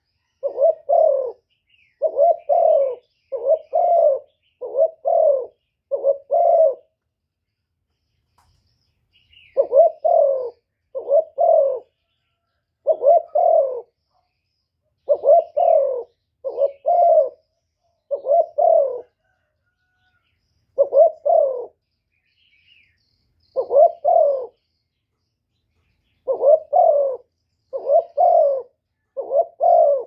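Spotted dove cooing: short, mellow coos repeated about once a second in runs, broken by pauses of a few seconds.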